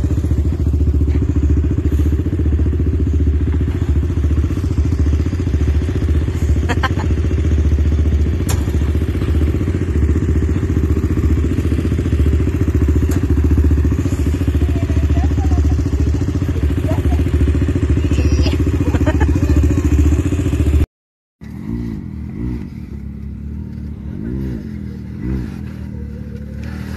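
Can-Am Maverick X3 side-by-side's turbocharged three-cylinder engine running steadily close by. After a sudden break it is quieter and revs up and down in several short swells as the machine crawls over rough dirt.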